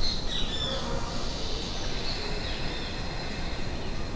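Birds chirping, a few short high calls, over a steady low rumble of outdoor background noise.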